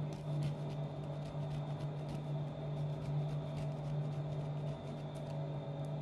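A steady low hum, with a few faint scattered clicks.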